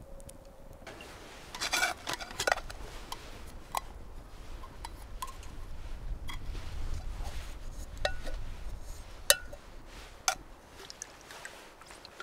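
Handling a vacuum flask and its metal cup: a string of small clicks, knocks and rubbing, the sharpest knock about nine seconds in.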